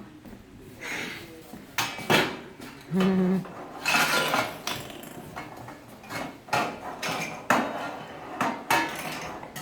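Pans and utensils clattering and knocking, with irregular sharp knocks and clinks from a play-cooking session with toy food.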